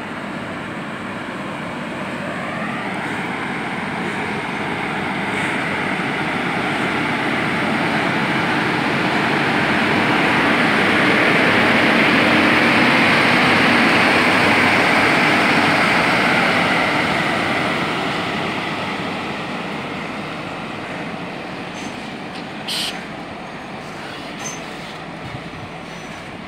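WAP-1 electric locomotive and the coaches of an express train leaving the station, running past on the rails with a steady rolling rumble of wheels and bogies. It grows louder to a peak about halfway through as the locomotive and first coaches go by, then fades as the rest of the train passes. There is a brief sharp clank about four seconds before the end.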